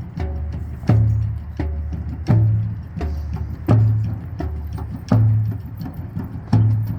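Drums beaten in a slow, steady rhythm: a loud, deep, ringing stroke about every one and a half seconds, with a softer stroke between each.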